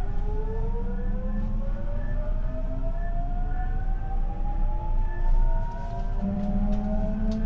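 JR Central 373 series electric multiple unit pulling away from a stop, heard from inside the motor car KuMoHa 373-5. The VVVF inverter and traction motors give a chord of whines that climb steadily in pitch as the train accelerates, with a sudden drop and restart in tone right at the beginning as the inverter changes mode. Underneath is a steady low rumble.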